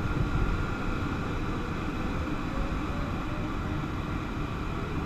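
Steady rush of airflow around the cockpit of a Nimbus 3D sailplane in gliding flight, mostly a low rumble.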